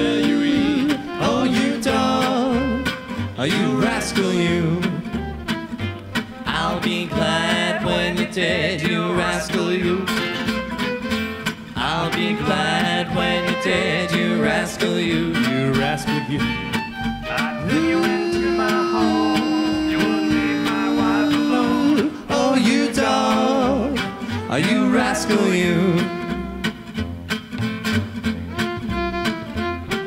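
Gypsy jazz band playing live: acoustic guitars strumming, a plucked upright double bass and a bowed violin.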